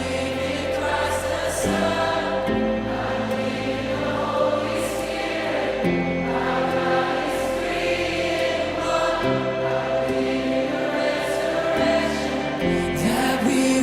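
Background music: a slow Christian choral song, a choir singing over sustained chords that change every few seconds.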